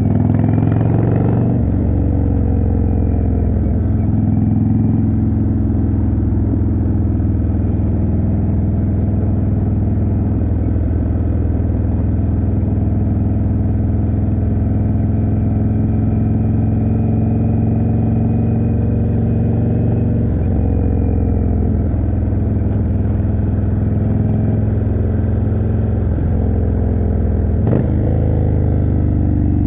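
Indian Chieftain's 1811 cc V-twin running through a Jekill & Hyde exhaust under way, mostly at a steady cruise. The engine note shifts near the start and again near the end, with a sharp click about two seconds before the end.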